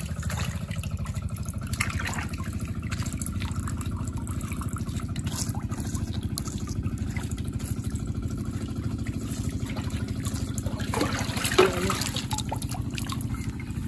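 Shallow water trickling and splashing as hands and feet work through the wet rice field, over a steady low rumble. A short louder burst comes about eleven seconds in.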